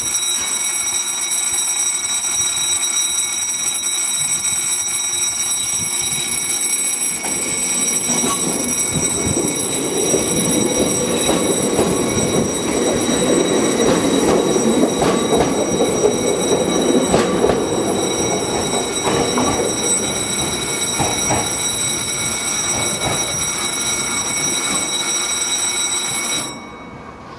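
A Hokuriku Railway 7100-series two-car electric train approaches and passes close by, its running rumble growing loudest in the middle with wheels clacking over rail joints. A steady high-pitched ringing tone sounds throughout.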